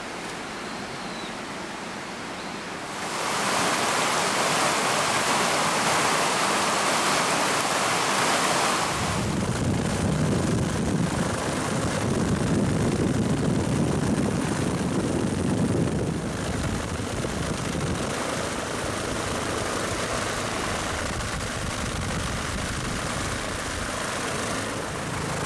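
Steady outdoor rushing noise, louder from about three seconds in and turning to a lower rumble about nine seconds in.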